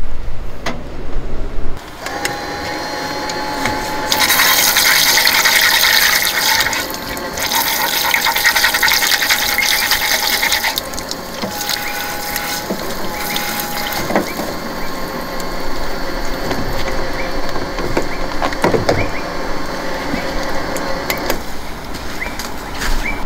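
Water running or being poured, with a rushing hiss that is loudest in two stretches in the first half and a steady whine underneath that breaks off a few times.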